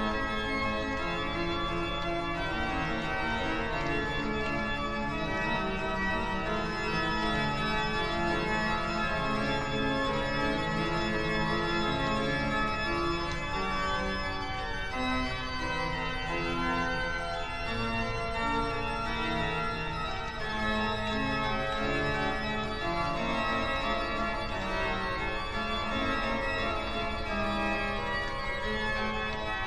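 Organ music playing slow, held chords, with a low steady rumble underneath.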